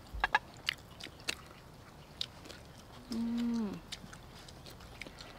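People eating: chewing and biting mouth sounds with sharp clicks, mostly in the first second and a half. About three seconds in comes a hummed 'mmm' of enjoyment, held for under a second and dropping in pitch at the end.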